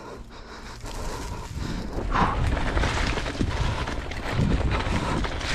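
Mountain bike rattling and knocking as it rolls down a rough dirt trail, with low rumble from the tyres and wind on the microphone; it gets louder about two seconds in.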